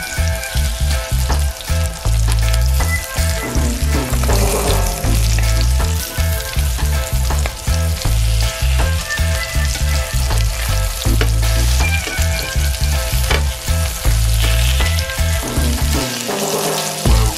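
Kahawai fillets sizzling and crackling as they fry in butter in a nonstick pan, with metal tongs clicking against the pan as the pieces are turned.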